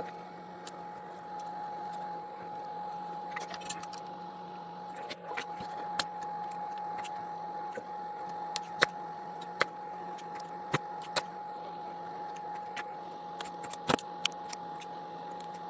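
Scattered small clicks and taps of hand tools working on a battery's circuit board during desoldering, over a faint steady whine.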